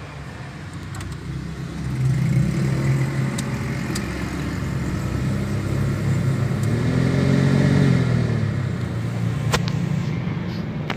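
Datsun Go's three-cylinder engine running, its note rising and falling once midway, with a sharp click shortly before the end.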